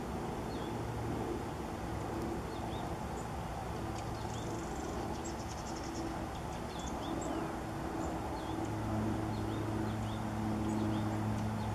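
Outdoor ambience: a steady low engine drone that grows louder about eight and a half seconds in, with scattered short, high bird chirps throughout and a brief rapid high trill about five seconds in.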